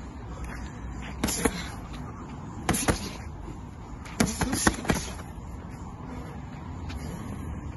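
Boxing gloves smacking on gloves and body in short sparring combinations: two quick pairs of sharp slaps about a second apart, then a faster burst of four near the middle, over a steady low background rumble.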